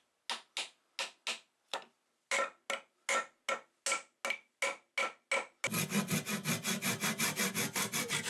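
A soft-faced mallet tapping a wooden wedge into a hammer's eye, about fifteen sharp taps at roughly three a second. At about five and a half seconds it switches to a hand saw cutting the protruding wedge flush with the head in quick, rasping strokes.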